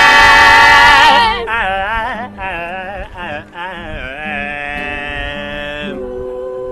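Voices singing a chant-like melody with sliding, wavering pitch. It is loud at first, drops to softer singing about a second in, and settles into a steady held drone note near the end.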